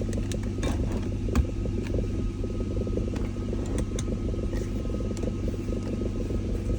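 BMW E39 540i's V8 idling with a steady low rumble, overlaid by irregular sharp knocks, the loudest about a second and a half in. This is the strange knocking with vibration that the owner hears with the transmission in R or D.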